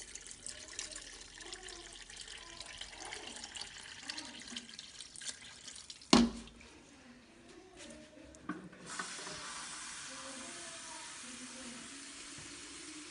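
Water poured into an aluminium pressure cooker of chickpeas, splashing. There is one sharp knock about six seconds in, and a steady even hiss from about nine seconds on.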